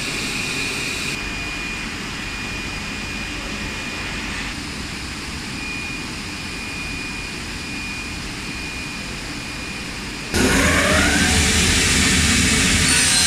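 Steady hum of a plastic foam profile extrusion line running, with a thin high whine. About ten seconds in, the line's profile cutting saw starts abruptly and much louder, its pitch rising as it spins up.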